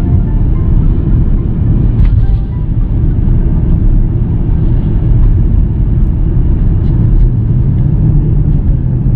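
Steady low rumble of a car driving at speed, the road and tyre noise heard from inside the cabin.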